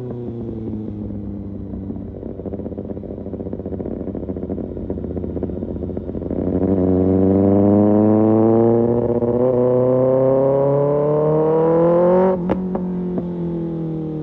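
Inline-four engine of a Kawasaki Ninja ZX-6R with an Arrow Pro Race exhaust. It winds down off the throttle, then runs at low revs for a few seconds. About six seconds in it opens up and revs steadily higher for about six seconds. The throttle then shuts with a few sharp cracks and the revs fall away.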